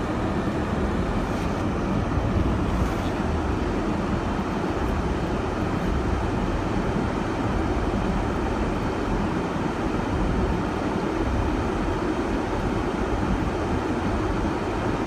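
Steady engine and road rumble heard inside a 4x4's cabin as it drives along a rutted dirt track.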